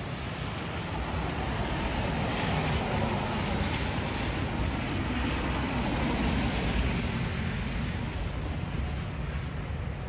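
Rushing outdoor noise of a snowy city street, swelling to its loudest in the middle and easing off near the end.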